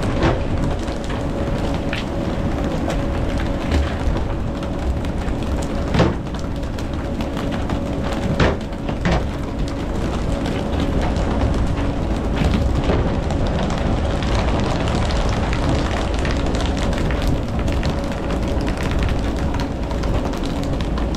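A boat engine running steadily under a constant rush of noise, with a few sharp knocks.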